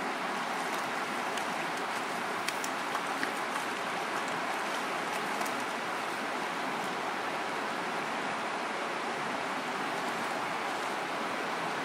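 River water flowing steadily over a stony bed, with a few faint clicks about two and a half to three and a half seconds in.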